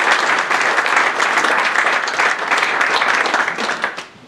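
Audience applauding, dying away in a few last scattered claps near the end.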